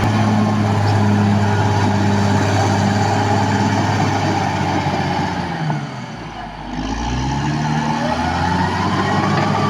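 Caterpillar D6R XL bulldozer's diesel engine running hard. About six seconds in, its pitch and a higher whine sag, then climb back up within a couple of seconds as the engine lugs and recovers.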